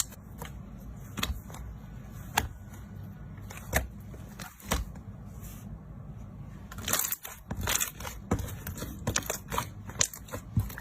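Slime being squeezed and poked by hand, giving irregular sharp crackles and pops, sparse at first and denser in the last few seconds.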